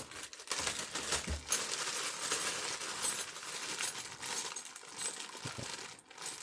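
Small steel bolts clinking and rattling against each other as a bag of Allen head bolts of different lengths is handled, with many quick irregular clicks.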